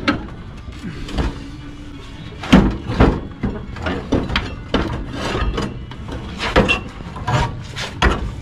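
Irregular metal clunks, knocks and scrapes as an old riding-mower engine is wrestled up and off the mower's frame. The loudest knocks come about two and a half seconds in, again around three seconds, and around six and a half seconds.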